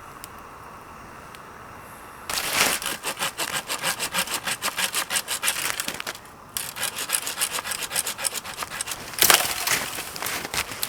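Hand saw cutting wood in fast, even back-and-forth strokes, starting about two seconds in, stopping briefly past the middle, then carrying on.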